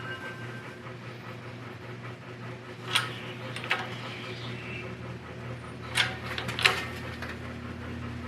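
Scattered sharp metallic clinks and knocks, with a short ring after them, from steel parts and tools being handled while a carrier bearing is pressed onto a differential carrier. They come in two pairs, about 3 s in and again around 6 s in, over a steady low hum.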